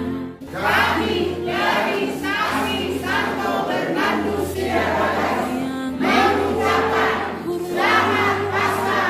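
A group of many voices singing together over a low, held accompaniment, starting after a brief break near the start.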